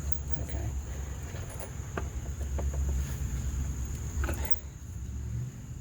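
Steady high-pitched chirring of crickets, over a low rumble, with a few light clicks, about two seconds in and again past four seconds.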